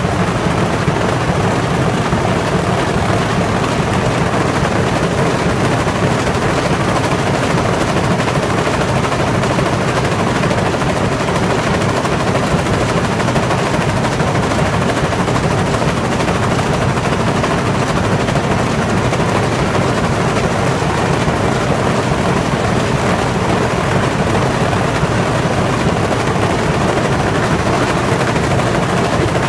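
Vibrator and stacker of a corrugated-box die-cutting line running: a loud, steady, rapid clatter as the vibrating rollers shake die-cut waste off the cardboard sheets and the sheets are conveyed to the stack.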